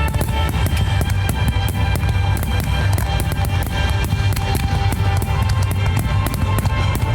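Loud rock-style music with drums and guitar, going on without a break.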